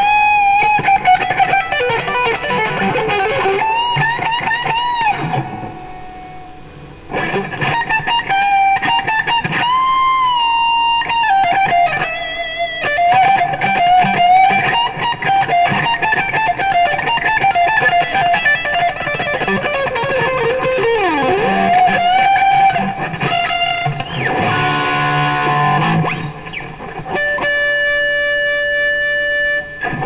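PRS SE Custom electric guitar with a Seymour Duncan humbucker, played through a Marshall AVT150H amp head into a Marshall cabinet loaded with Celestion Greenback speakers. It plays lead lines of long sustained single notes with string bends and vibrato, dips in volume about six seconds in, and holds long high notes near the end.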